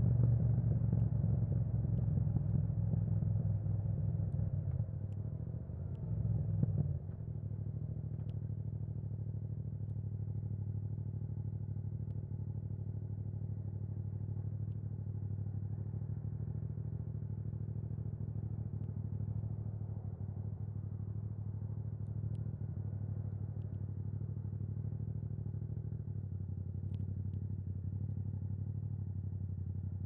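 Yamaha MT-07's 689 cc parallel-twin engine running through an Akrapovic exhaust with the dB killer removed. Over the first seven seconds the revs and level come down, then the engine holds a steady, even note.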